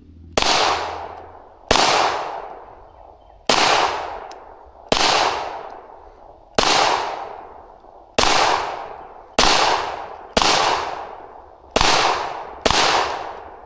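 Glock 17L Gen 5 9mm pistol firing about ten single shots at an uneven pace, one to two seconds apart. Each shot rings out in a long echo before the next.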